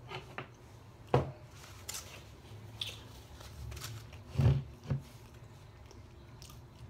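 A few light knocks and clicks of handling things at a table, the sharpest about a second in. A couple of heavier thumps come about four and a half seconds in as a plastic soda bottle is picked up.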